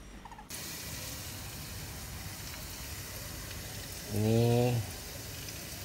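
Cooking oil with melting margarine sizzling in a wok: a steady frying hiss that starts abruptly about half a second in.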